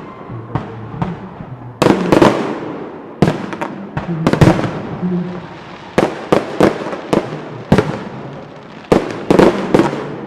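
Aerial firework shells bursting in quick clusters: a dozen or so sharp bangs, each trailing off in an echo.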